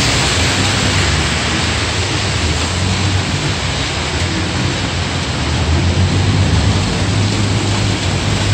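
Heavy rain falling in a steady hiss, with car engines running on the wet road underneath, the engine sound growing stronger near the end.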